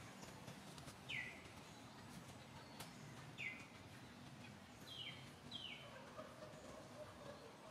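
A bird calling: four short chirps, each dropping quickly in pitch, the last two in quick succession about five seconds in, over a faint background hiss.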